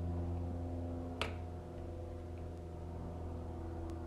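Sharp click about a second in and a fainter one near the end, over a steady low hum, as the stove is being lit.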